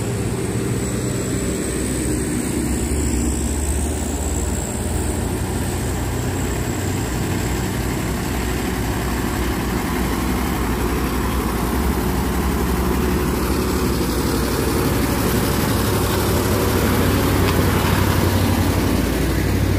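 Heavy diesel container truck's engine running steadily as the truck climbs toward the listener, growing louder as it comes up and passes close by near the end.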